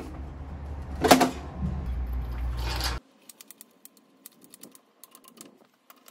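A loud metallic clunk about a second in as the vintage Vespa comes down off its center stand, then a run of light, rapid clicks from a motorcycle lift jack being set under the scooter and pumped.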